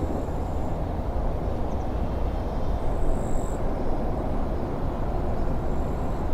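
Steady low outdoor rumble with no distinct event, such as wind or distant traffic, and a brief faint high tone about three seconds in.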